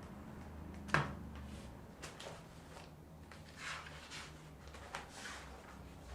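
Handling noise in a small room: one sharp click about a second in, then a few soft rustles and light taps.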